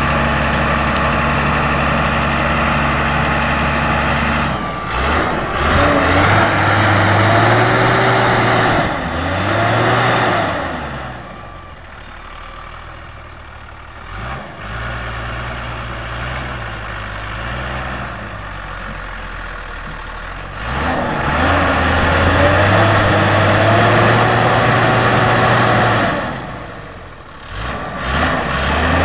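JCB Fastrac 3220 tractor's diesel engine, steady at first, then revving hard and easing off in two long surges, with the wheels digging into soft soil. It dips about two seconds before the end and picks up again.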